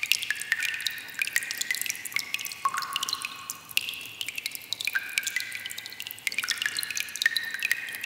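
Water dripping in a cave: many drops falling irregularly, several a second, each a sharp plink with a short ringing tone.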